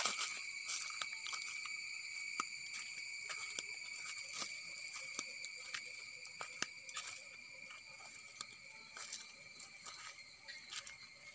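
Steady, high-pitched drone of insects that slowly fades, with scattered light crackles of footsteps on dry leaves and soil.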